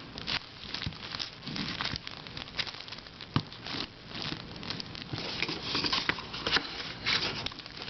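Small plastic puzzles and their plastic packaging being handled: irregular light clicks and taps with crinkling.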